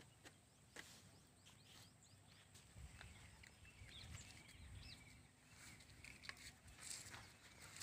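Near silence: faint outdoor ambience with a few faint clicks and short chirps.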